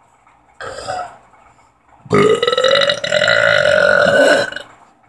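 A deliberate, long, loud burp lasting about two and a half seconds at a steady low pitch, after a short vocal sound about half a second in.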